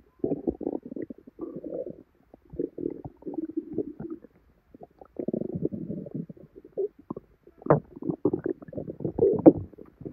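A human stomach gurgling and bubbling in irregular bursts, with short lulls between them and a few sharper pops in the last few seconds. It is the sound of a bloated, upset gut, which the owner puts down to a salad that left her with severe bloating and belly pain.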